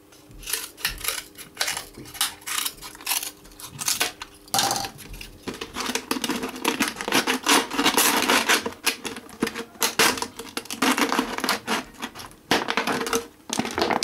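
Scissors snipping at the edges of a thin wooden strip, a run of sharp separate clicks, then the plastic water bottle crackling as the strip is pushed into the slit in its side.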